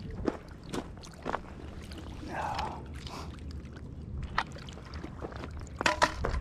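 Scattered light clicks and knocks from a person shifting about on a rocky gravel shore, over a steady low rumble. A louder cluster of knocks comes about six seconds in.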